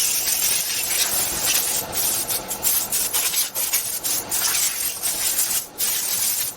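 Wood being worked with an abrasive tool, a hissy scraping with quick, irregular strokes.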